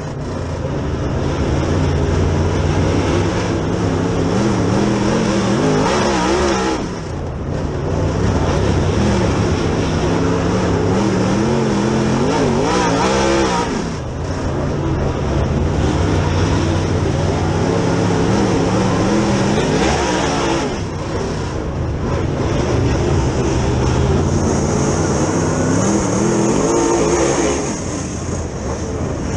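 Dirt Super Late Model's V8 racing engine heard from inside the car, running hard under throttle. It backs off briefly and pulls back up about every seven seconds, four times, as the car goes through the turns.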